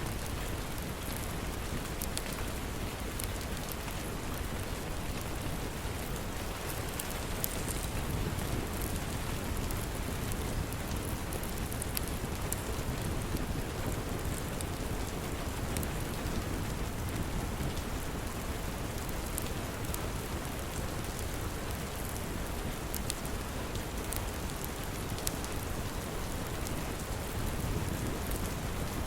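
Steady rain, with scattered sharp crackles and pops from a wood fire in a fireplace.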